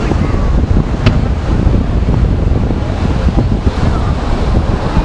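Wind buffeting the microphone, a loud steady low rumble, with one sharp firework crack about a second in.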